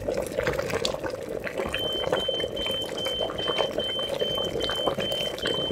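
A lidded saucepan boiling on an electric coil burner: a steady bubbling hiss with scattered crackles. From about two seconds in, a high electronic beep repeats about two and a half times a second.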